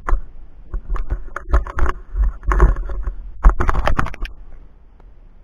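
Footsteps and boots brushing through grass on a mountain path, with irregular rustles, scrapes and low knocks of the body-worn camera jostling. The sharpest knock is about three and a half seconds in, and the sounds fade away near the end.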